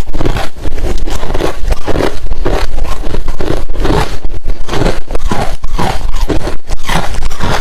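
Close-miked chewing of hard refrozen crushed ice: continuous loud crunching and crackling, with bite after bite in a quick, even chewing rhythm.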